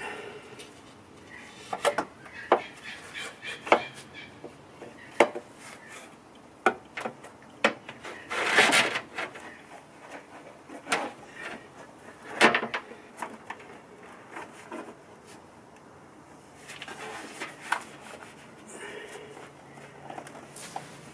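Hands fitting a corrugated plastic intake hose, blue adaptor and hose clamp: scattered sharp clicks and knocks with rubbing, and a longer rubbing noise about eight and a half seconds in.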